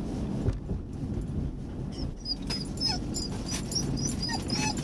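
Dog whining in short, high-pitched squeaks that begin about two seconds in and keep coming, some sliding down in pitch; the dog is eager to get out and run at the beach.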